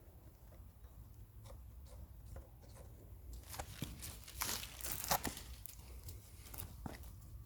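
Crinkling and rustling with scattered clicks, thickening into a burst of crackles from about halfway in that peaks about five seconds in, then thinning out again.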